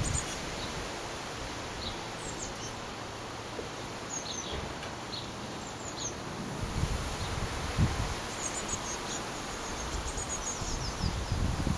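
Wind blowing through garden foliage with a steady rustling hiss, and gusts buffeting the microphone as a low rumble from about halfway through. Over it come scattered high, thin chirps of small birds, in quicker runs in the second half.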